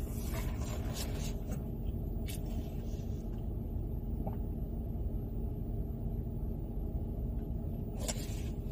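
Steady low rumble of a car's engine and road noise heard inside the cabin while driving slowly, with a couple of faint clicks.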